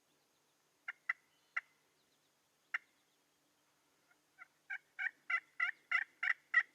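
Turkey yelps: four scattered notes, then a run of about eight yelps at roughly three a second that grows louder toward the end.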